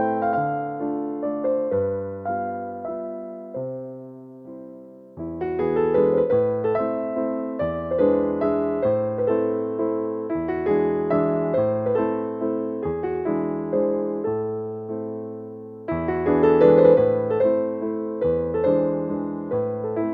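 Background piano music: a gentle flow of struck keyboard notes and chords ringing and fading, dipping in loudness about four seconds in and coming back fuller about five seconds in and again near the end.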